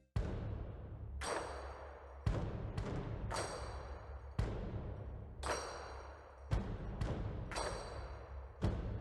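Repeated sharp metallic strikes, roughly one every half second to a second, every other one or so ringing on with a clear high tone, over a low steady hum.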